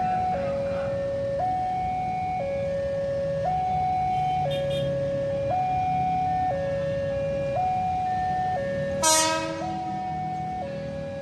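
Level-crossing warning alarm sounding two alternating tones, switching about once a second, as a KRL commuter electric train approaches with a low rumble; a short, loud blast of the train's horn about nine seconds in.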